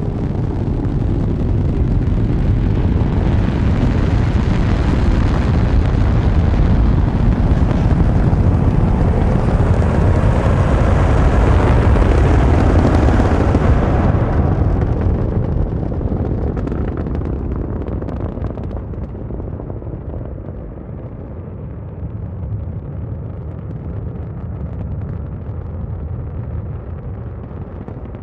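Loud, deep rumble with a hiss on top, building over the first dozen seconds; about fourteen seconds in the hiss drops away, leaving a quieter low rumble.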